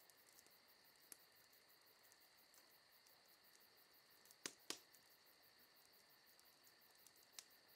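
Near silence: a faint steady high hum with faint ticking about four times a second, and two soft clicks about four and a half seconds in.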